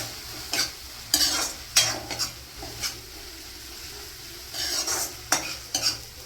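A spoon stirring and scraping a pan of frying chhola masala (dried peas, tomato and spices), with a steady sizzle under irregular scrapes of the spoon on the pan.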